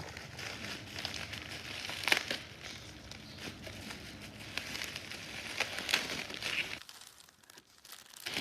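Packaging crinkling as it is handled, with sharper crackles about two and six seconds in. It falls quiet shortly before the end.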